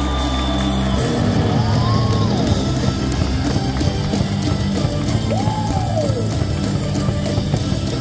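Loud cheering music over a baseball stadium's speakers, with the crowd in the stands cheering along; a few long rising-and-falling calls ring out over it.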